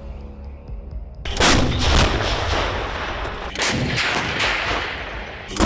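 Artillery fire: a low rumble, then from about a second in several heavy blasts with continuous rumbling between them.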